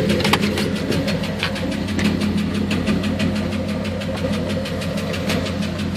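The AMC 360 V8 of a 1989 Jeep Grand Wagoneer idling steadily, with a fast, regular ticking over the low hum.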